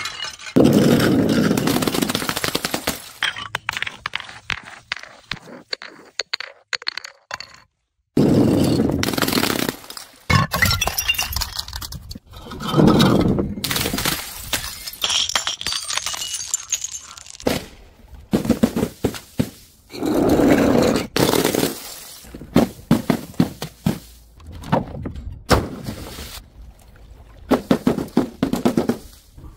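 Objects smashing onto paving one after another: several loud crashes a few seconds apart, each followed by tinkling and scraping as glass shards scatter and skid, mixed with dull thuds of colour-filled balloons hitting the tiles and bursting.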